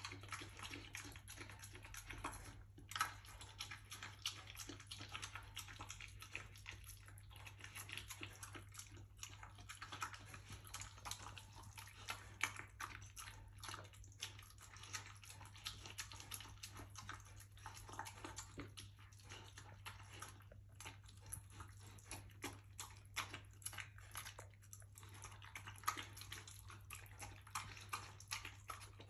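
Rhodesian Ridgeback puppy eating from a bowl with loud, wet smacking and chewing, a continuous irregular stream of smacks and sharp clicks.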